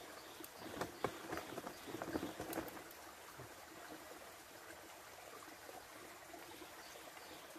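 A quick cluster of small splashes and knocks starting about a second in and lasting about two seconds, over the steady hiss of a shallow stream.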